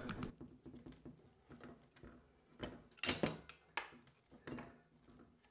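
A few faint clicks and taps of a Phillips screwdriver turning a bolt into a steel bracket rod, the bolt stiff with thread lock.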